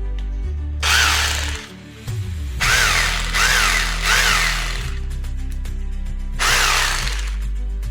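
Electric power drill triggered in about five short bursts, each spinning up and winding down, over background music with a steady bass line.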